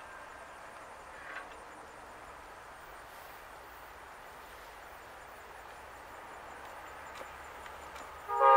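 Low, steady outdoor background noise. Near the end a locomotive horn starts blowing loudly, a chord of several steady tones sounding together.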